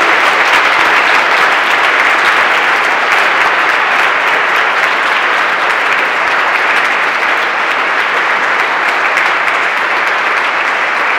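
Audience applauding: a dense, steady round of clapping that eases slightly near the end.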